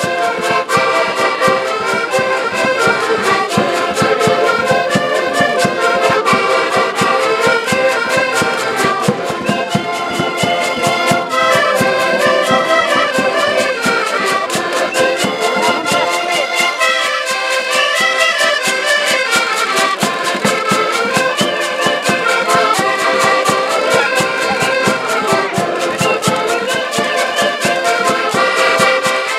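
Several button accordions playing a lively Portuguese folk tune together, with a bass drum keeping a steady beat.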